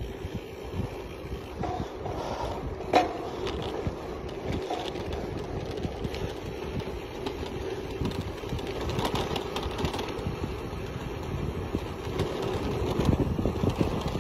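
Wind buffeting the microphone and bicycle tyres rolling over a gravel road while riding, a steady rush with uneven gusts. A single sharp knock about three seconds in.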